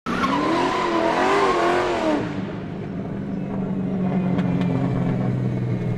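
Car sound effect: an engine revving with a wavering pitch over a rush of noise for about two seconds, then running on steadily at a low pitch, with a few faint clicks.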